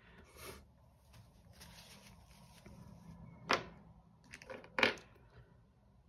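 Rembrandt chalk pastel stroked across sketchbook paper, a soft scraping, then two sharp taps about a second apart, the second the loudest.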